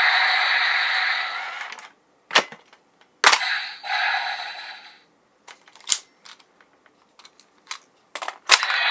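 CSM Build Driver toy: an electronic hissing sound effect from its speaker fades out about two seconds in. Sharp plastic clicks and snaps follow as the toy is worked, with a second, shorter burst of the hiss after one of them and scattered lighter clicks afterwards.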